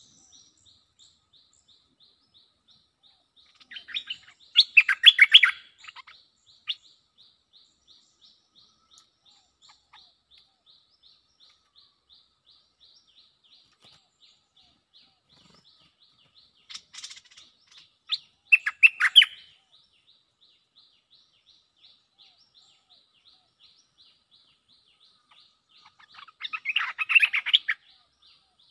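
Bulbuls calling in three short, loud bouts of quick chattering notes: one about four seconds in, one around seventeen to nineteen seconds, and one near the end. This is a caged decoy bulbul trading calls with a wild resident bird. A faint, quick, even high-pitched ticking runs underneath.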